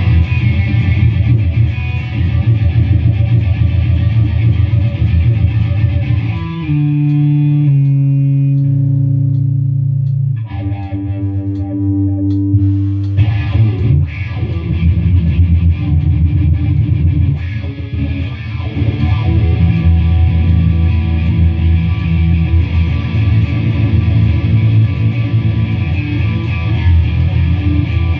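Electric guitar played through distortion, chords and riffs. About a third of the way in, one chord is left to ring for about four seconds before the playing picks up again.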